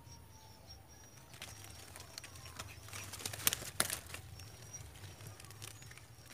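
Faint outdoor pond-side ambience: short high chirps repeating over a steady low wind rumble, with a few sharp clicks a little past the middle, the two loudest about a third of a second apart.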